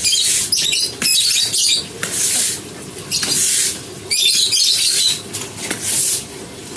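Brush scrubbing a surface in rhythmic back-and-forth hissing strokes, about one a second, some smooth and some scratchy.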